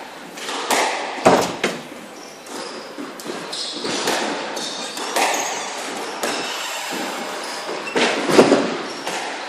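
Squash rally: the rubber squash ball struck by rackets and hitting the court walls and floor, a string of sharp hits and thuds at uneven spacing that ring in the hall, the loudest cluster near the end.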